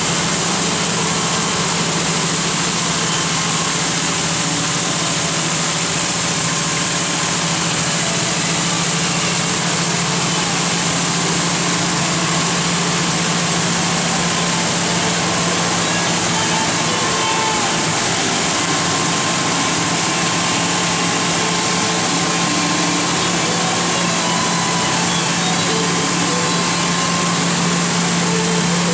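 Abplanalp TFG wet belt grinder running steadily while grinding small aircraft brake pads to thickness: a constant low hum under an even hiss from the abrasive belt and coolant spray.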